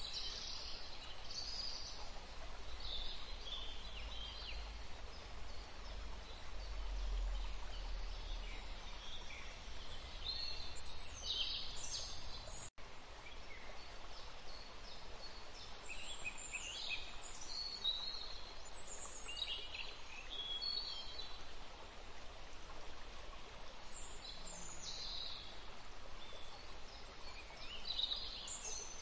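Birds chirping and twittering over a steady background hiss. The sound cuts out for an instant about 13 seconds in.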